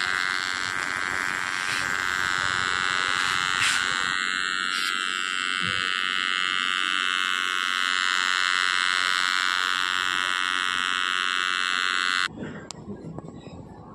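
Small DC toy motor spinning a plastic propeller: a steady, high buzzing whine that cuts off suddenly near the end.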